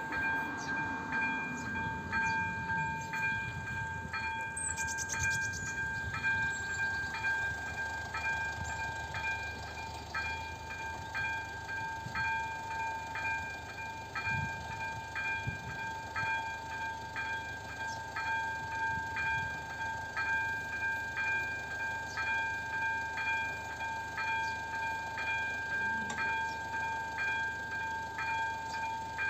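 Electronic warning bell of an AŽD 71 level-crossing signal ringing while the crossing is active: a steady high tone with a regular ding about one and a half times a second.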